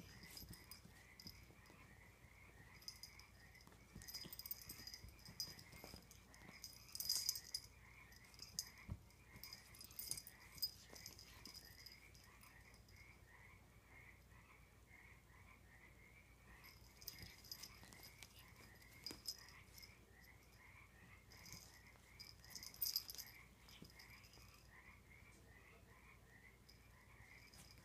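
A Bengal kitten pouncing on a wand toy on a blanket: quiet bursts of rustling with a light metallic jingle come and go, over a faint steady chirping that repeats about two to three times a second.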